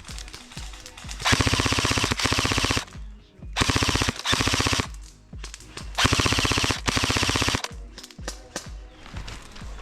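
Airsoft guns firing on full auto: three long, rapid bursts of a second or more each, with a few scattered single shots in between and near the end.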